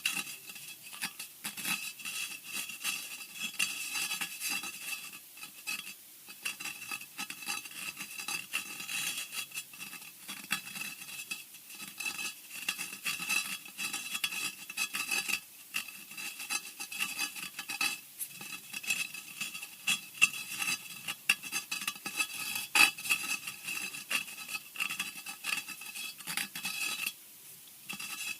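Horror scratching sound effect: a continuous, rapid run of short scrapes and clicks, with a brief lull near the end.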